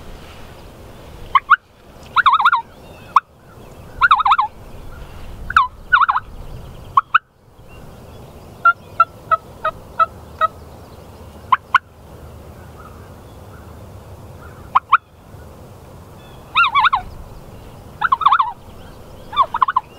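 Wild eastern turkey gobblers gobbling, three rattling gobbles in the first few seconds and three more near the end. In between comes a run of about six short, evenly spaced yelps, with a few single sharp calls.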